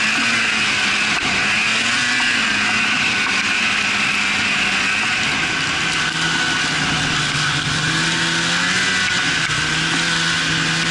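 Snowmobile engine running while riding over snow; its pitch holds steady, drops a little about halfway through and rises again near the end.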